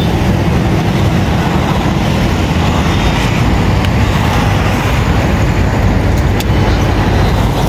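Loud, steady road traffic noise, with the low hum of vehicle engines running close by.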